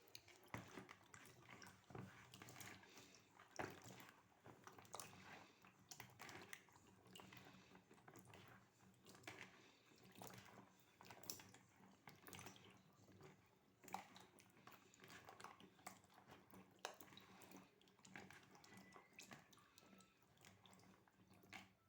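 Faint splashing and squelching of dried figs rubbed by hand in a basin of fresh rinse water, with many small irregular clicks and drips as they are rinsed of dust.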